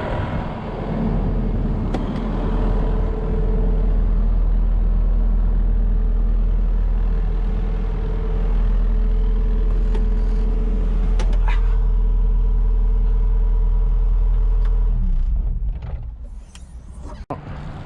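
A motor vehicle engine running steadily with a deep drone and a constant higher whine. It drops away sharply about fifteen seconds in.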